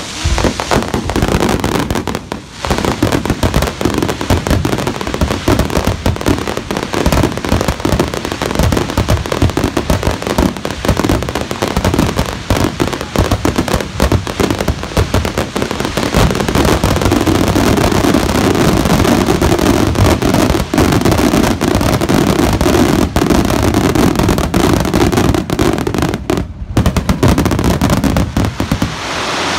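Aerial firework shells bursting in a rapid, continuous barrage, the finale of a fireworks display: overlapping booms and crackles, growing denser and louder about halfway through, with a brief pause near the end.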